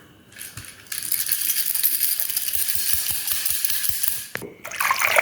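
Crisp crackling with quick rattling clicks, from hands working a slime pouch and its contents. It starts about a second in and stops suddenly a little over four seconds in.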